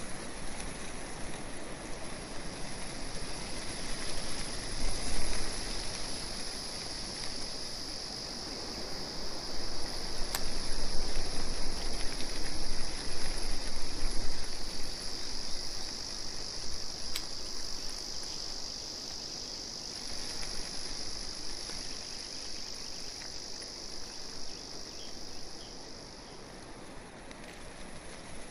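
Insects trilling in a steady high-pitched chorus that sets in about two seconds in and fades out near the end, over a steady background hiss, with two sharp clicks partway through.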